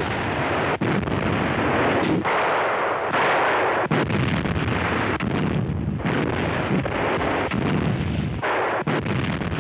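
88 mm flak guns firing: heavy shots every second or two over a continuous rumble of gunfire.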